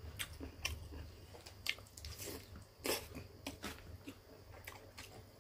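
Close-up mouth sounds of a ripe mango slice being bitten and sucked: irregular wet smacks and clicks, with one louder wet burst about three seconds in.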